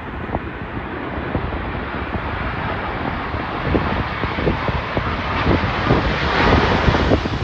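Jet engines of a Boeing 787-9 on approach, a broad roar growing steadily louder as the airliner nears. Gusty wind buffets the microphone throughout with irregular thumps.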